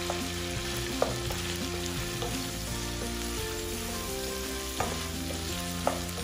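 Shrimp and chicken sizzling as they sauté in oil in a coated pot, a steady sizzle, while a wooden spatula stirs them and knocks against the pot three times.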